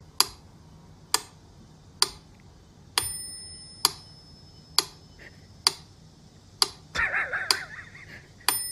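Mechanical metronome ticking steadily, about one sharp tick a second, with a bell ding on two of the beats. A short wavering sound cuts in about seven seconds in.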